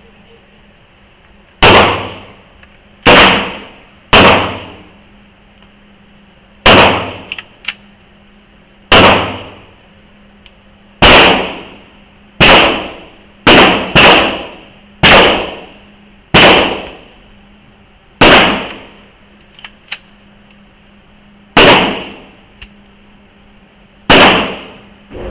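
Gunshots from a firearm on a shooting range: about fourteen single shots at uneven intervals, one to three seconds apart, each echoing briefly, with a quick pair about halfway through. A few faint clicks fall between shots near the end.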